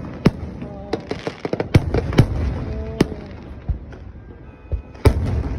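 Aerial fireworks exploding overhead in a rapid series of sharp bangs. About a second in there is a burst of crackling, and near the end comes a heavy cluster of booms.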